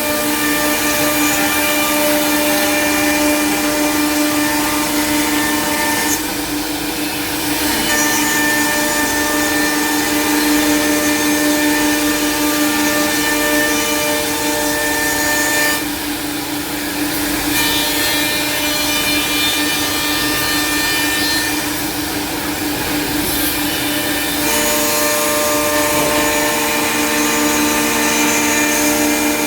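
CNC four-spindle mortising machine running, its router spindles whining steadily while machining mortises in wood. The sound dips briefly and changes tone three times, about 6, 16 and 22 seconds in.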